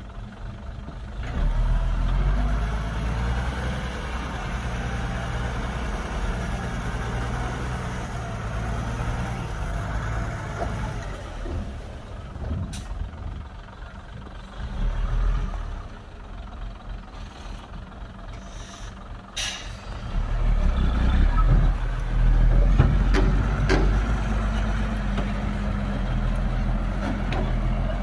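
Hyundai dump truck's diesel engine running under load, pushing up to a louder drone about a second and a half in and again near the end. Two short sharp noises cut through partway along.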